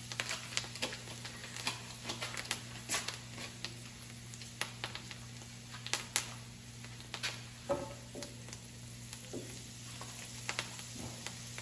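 Melted butter with sprigs of fresh rosemary and thyme sizzling gently in a cast-iron skillet on low gas, crackling with irregular small pops.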